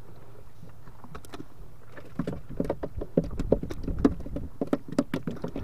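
Freshly caught fish slapping and flapping on a wet wooden boat deck as they are handled: a quick, irregular patter of soft slaps that starts about two seconds in, over a steady low background noise.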